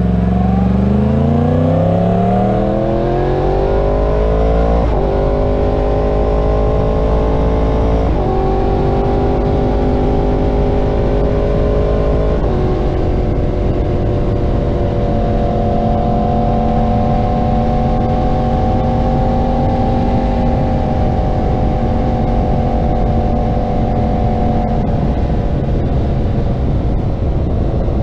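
Yamaha R1 inline-four sport-bike engine through a Graves aftermarket exhaust, accelerating hard with its pitch climbing. It drops three times, at about 5, 8 and 12 seconds in, as the rider shifts up, then settles into a steady cruise with only slight rises and falls in pitch.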